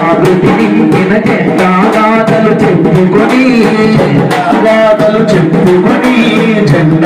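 Live amplified music: men singing a melody into microphones, accompanied by an electronic keyboard and a hand-held drum beaten with a stick.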